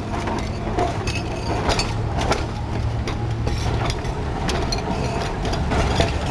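Two-coach electric tram rolling slowly past, its wheels and bogies clanking and clicking irregularly over the rails above a steady low rumble, with a low hum through the middle.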